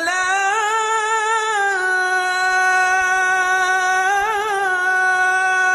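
A muezzin chanting the adhan, the Islamic call to prayer, holding one long drawn-out sung note, with a brief melismatic ornament a little past the middle.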